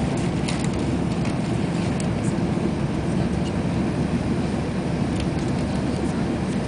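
Train running at speed, a steady rumble of wheels on rails heard from inside the passenger carriage, with a few light clicks in the first couple of seconds.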